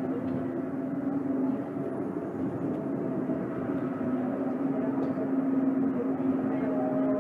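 Tama Toshi Monorail 1000 series train running between stations, heard from inside the car: a steady low hum from the drive with a fainter higher tone over the rumble of the running gear on the guideway beam.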